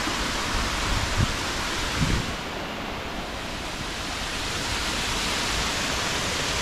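Small rocky stream rushing and splashing over little cascades, a steady hiss of water. Two brief low thumps about one and two seconds in.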